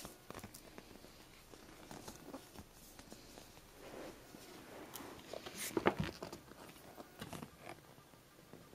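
Faint rustling and handling noises from a sealed map being taken out of its plastic wrapping and unfolded, with scattered soft clicks and a busier patch of rustling about six seconds in.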